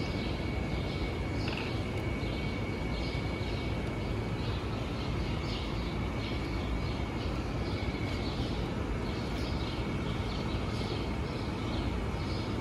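Outdoor city ambience: a steady low rumble with a thin, steady high tone and small birds chirping over and over.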